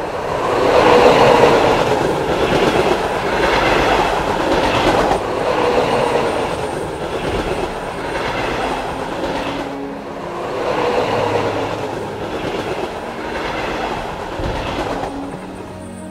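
Trains rolling past on the track: a dense, continuous wheel-and-rail rumble with a clatter in it, swelling and fading several times.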